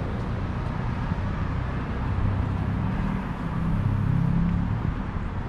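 Street traffic: the steady low hum of a motor vehicle's engine, growing a little louder past the middle as it passes.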